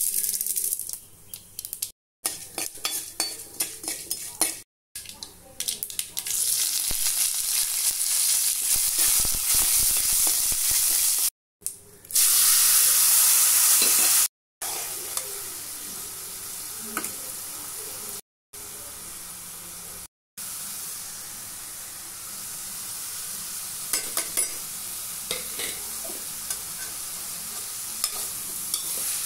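Tempering sizzling in hot oil in a kadai, then boiled carrot pieces being stirred and scraped with a metal spoon as they fry. The sound cuts off abruptly several times.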